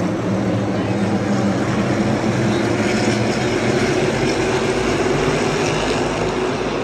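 A pack of NASCAR Cup cars racing past the grandstand at full throttle, their V8 engines making a loud, steady drone.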